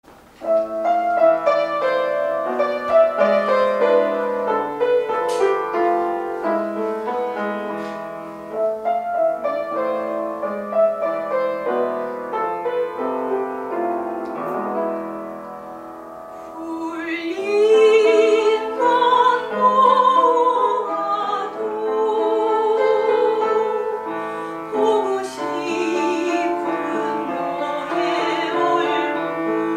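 Grand piano playing a slow introduction, then a soprano comes in singing with a wide vibrato a little past halfway, the piano accompanying her.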